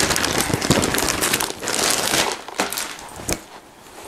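Clear plastic packaging bag crinkling and rustling as a fleece hoodie is pulled out of it. There is one sharp tick about three seconds in, and the rustling is quieter near the end.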